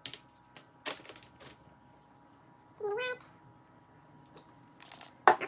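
A few sharp clicks and scrapes of a small metal tool against a blush pan, the loudest a knock near the end. About three seconds in, one short cat meow.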